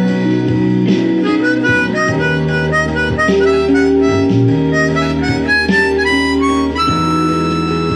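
Harmonica playing a blues melody over a guitar backing track in B with drums: a run of quick notes in the middle, then a long held note near the end.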